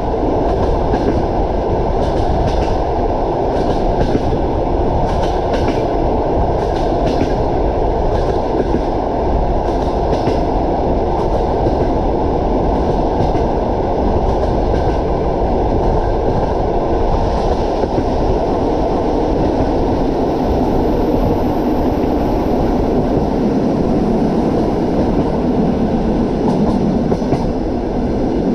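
Train running along the line: a steady loud rumble of the wheels on the rails, with irregular clacks as the wheels pass over rail joints, most of them in the first half.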